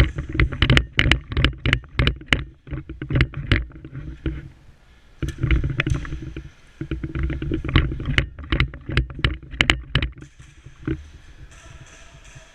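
Airsoft guns firing: rapid, irregular sharp cracks in two volleys, the second starting about five seconds in, over a steady low rumble.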